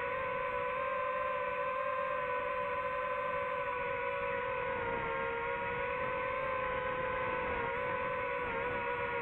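DJI FPV quadcopter's propellers and motors whining steadily in flight, the pitch wavering slightly as it banks and speeds along.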